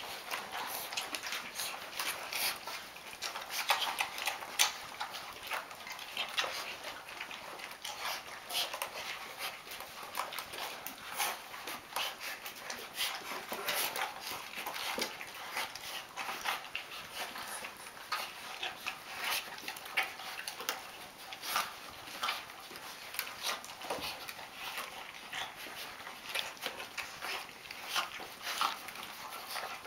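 A litter of five-week-old Rhodesian Ridgeback puppies eating together from one bowl: a dense, irregular run of short smacking and clicking sounds from many mouths and paws.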